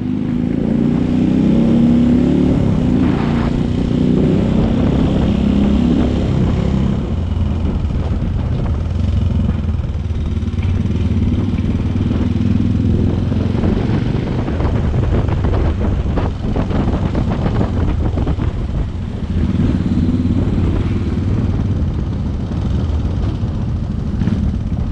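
Onboard sound of a Suzuki Thunder motorcycle's engine running as it rides through town traffic, its pitch rising and falling with the throttle.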